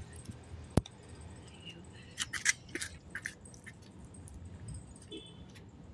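A phone set down on asphalt with one sharp knock about a second in, then a few light clicks and scuffs of footsteps over the next couple of seconds.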